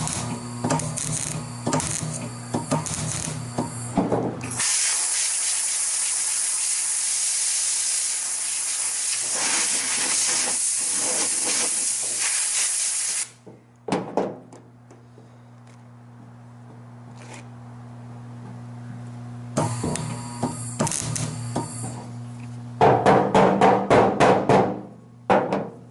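A steady spray hiss runs for about eight seconds and cuts off sharply. Before and after it come knocks and clicks of tools and parts being handled, ending in a quick run of sharp clicks, over a low steady hum.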